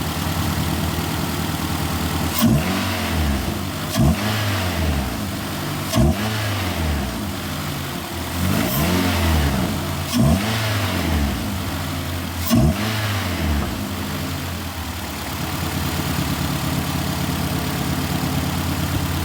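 2008 Nissan Altima engine, just fitted with a cold air intake, idling and blipped about six times in quick succession, every two seconds or so, each rev rising sharply and dropping back. It then settles to a steady idle.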